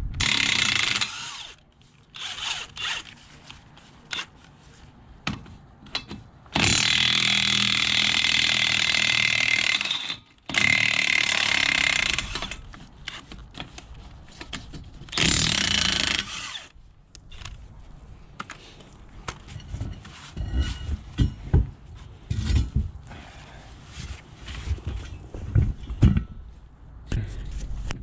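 Cordless impact wrench running in four bursts, the longest about three and a half seconds, as it takes the lug nuts off a skid steer wheel. Short knocks of handling sound between the bursts.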